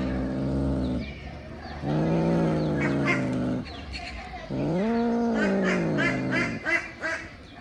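Domestic cat giving long, low, drawn-out growling yowls while eating meat, a food-guarding growl. There are three of them, the third rising and then falling in pitch, with a short one near the end.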